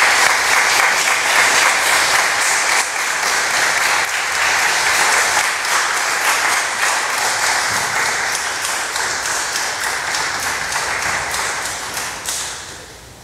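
Congregation applauding, many hands clapping together, dying away near the end.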